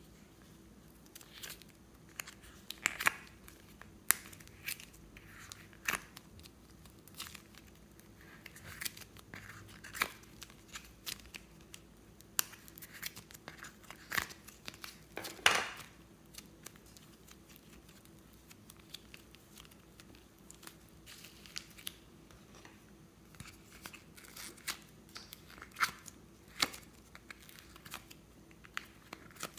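Soft modelling clay being dug and pulled by hand out of a segmented plastic container, making irregular clicks, crackles and short tearing sounds as the clay peels away and the plastic tray is handled. The loudest is a longer tearing rasp about halfway through.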